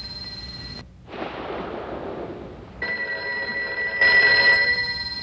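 A telephone ringing twice: the first ring dies away just under a second in, a stretch of rushing noise follows, then it rings again, louder from about four seconds in.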